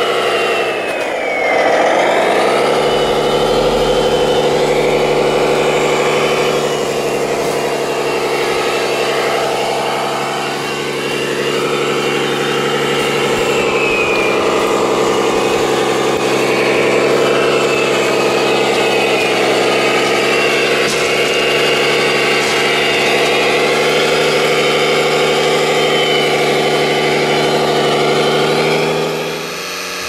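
Engine sound of an RC Kirovets K-700 6x6 model tractor-dumper loaded with gravel, running steadily; the pitch dips and climbs back about a second in, and a faint high whine glides down in pitch near the start and again around the middle.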